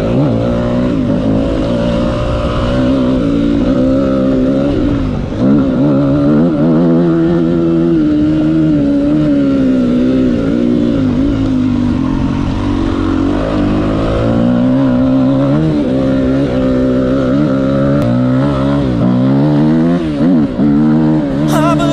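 Yamaha enduro motorcycle engine heard close up from on the bike, revving up and dropping back over and over as the rider accelerates and changes gear. A few sharp knocks come right at the end.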